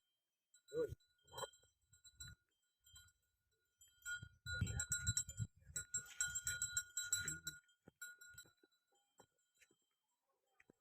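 Faint livestock sounds with scattered light metallic clinking: a short call about a second in, and a busier stretch of clinking and low rumble in the middle.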